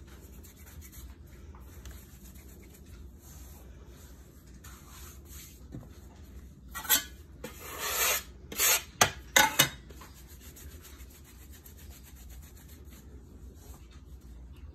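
Hands rolling and rubbing bread dough on a floured marble board, a soft steady rubbing. About seven seconds in, a metal bench scraper scrapes across the board in two strokes, the second longer, followed by three quick sharp clicks.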